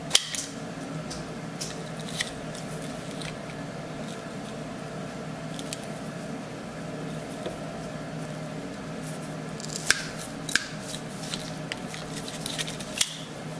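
PEX crimping tool closing a copper crimp ring onto a vinyl air hose over a brass fitting: scattered sharp metallic clicks and creaks from the tool's jaws and handles, the loudest just after the start, around ten seconds in and near the end. A steady low hum runs underneath.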